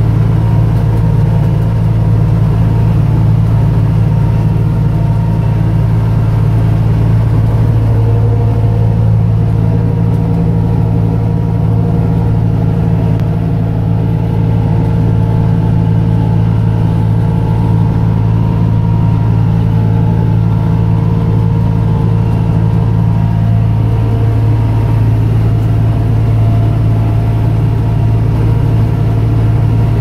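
Tractor diesel engine running at a steady working speed while pulling a round baler through hay windrows, a constant drone heard close up from the tractor.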